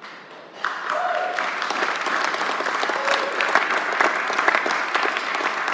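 Audience clapping, breaking out about half a second in and holding steady.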